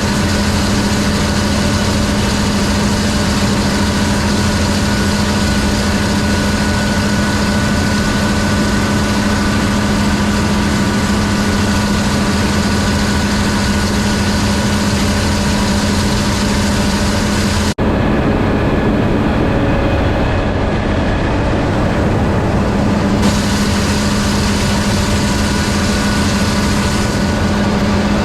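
Gleaner combine running steadily in the wheat field, a continuous engine and machine hum with a constant pitch. About two-thirds of the way in the sound drops out for an instant and then carries on, a little duller for a few seconds.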